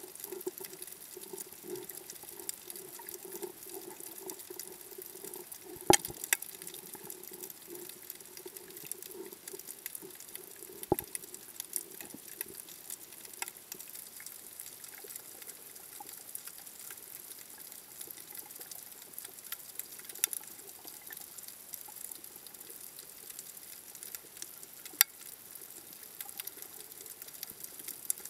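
Underwater coral-reef ambience: a dense, fine crackling with sharp clicks now and then, a few of them much louder. A low steady hum sits under it for the first third and then fades.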